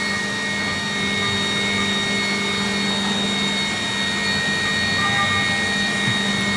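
Okuma five-axis machining centre milling an A5052 aluminium block: a steady whine from the spindle and cutter, several tones held together over a hiss. About five seconds in, new higher tones join.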